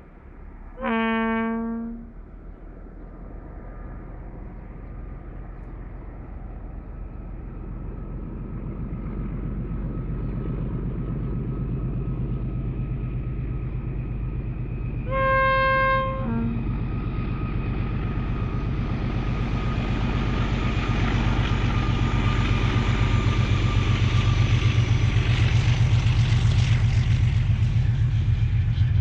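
Train horn blasting briefly about a second in and again about halfway through, over the rising rumble of an approaching train. The engines of its two rear-pushing locomotives are working hard on the climb, and the sound grows loudest near the end as the train comes past.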